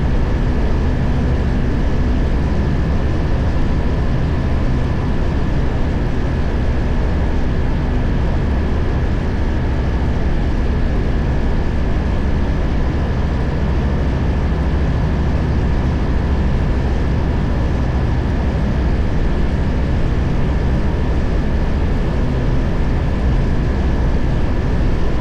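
Tecnam light aircraft's engine and propeller running steadily in level flight, with a rush of air and a faint steady high whine.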